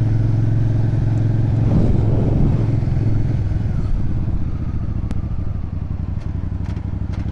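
Small motorcycle engine running at a steady cruising speed under the rider, its even hum mixed with road and wind noise.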